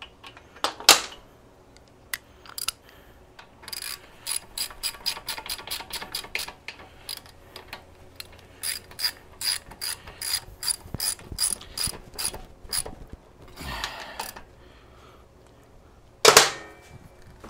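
Wrench ratchet clicking in quick runs of strokes as the front axle clamp cap nuts are tightened to torque spec, with a few louder knocks of tool on metal.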